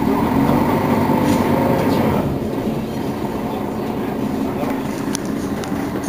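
Mercedes-Benz Citaro Facelift city bus idling at a stop: a steady low hum, louder for the first two seconds or so with a higher tone over it.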